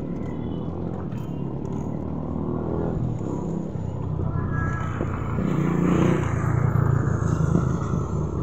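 Small motorcycle engines running close by, one drawing nearer and growing louder, loudest about six seconds in.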